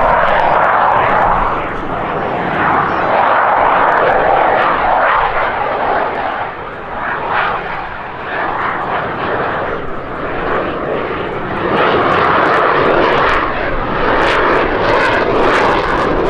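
Loud jet noise from an F-16 Fighting Falcon's Pratt & Whitney F100 afterburning turbofan in flight, a steady rushing roar that swells and fades: strong in the first few seconds, easing off in the middle, and building again after about twelve seconds.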